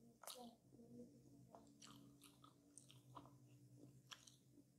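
Close-up, faint eating sounds of a coconut tart being chewed: soft moist chewing with scattered small clicks and smacks.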